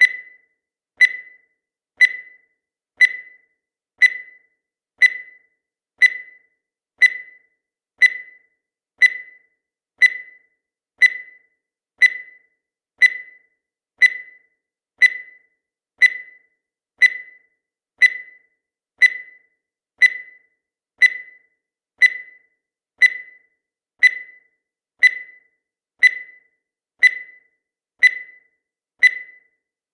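Countdown timer sound effect: a short, high blip once a second, each fading quickly.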